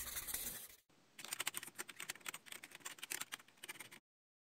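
A pen scratching, which stops under a second in, followed by fast computer-keyboard typing: a dense run of clicks for about three seconds that stops abruptly.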